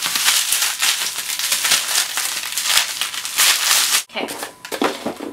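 Plastic packaging crinkling loudly as it is pulled open by hand, for about four seconds before cutting off abruptly.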